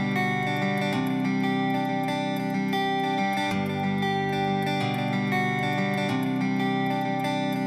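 Background music led by guitar, with held chords that change every two to three seconds.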